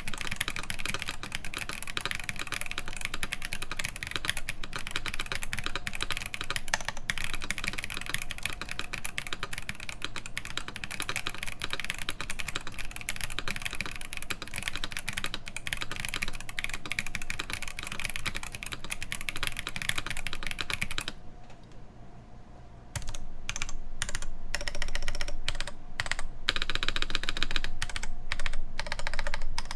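Fast typing on a mechanical keyboard with Holy Panda tactile switches, GMK keycaps and a full aluminium plate: a dense, steady stream of keystrokes. A brief lull comes a little past two-thirds of the way through, then the typing resumes louder, with keystrokes more spaced out.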